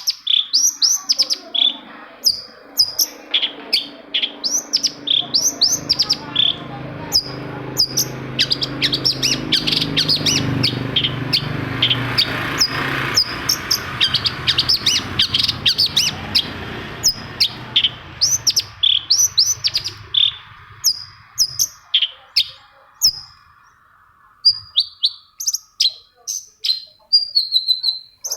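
Long-tailed shrike (cendet) calling in rapid runs of short, sharp, high notes that sweep downward, several a second. Behind it, a low droning rumble swells to its loudest about halfway through and fades out.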